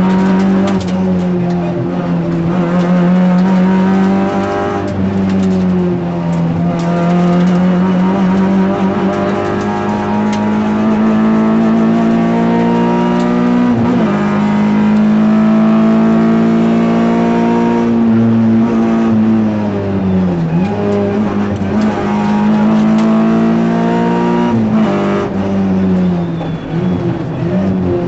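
Renault Clio rally car's engine heard from inside the cabin, driven hard on a stage. Its pitch repeatedly climbs under power and then drops sharply, as with gear changes and lifting for corners.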